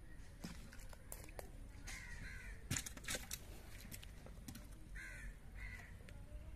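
Crows cawing several times. Around three seconds in come a few sharp splashes and knocks, as a fish is worked free of a net in shallow water.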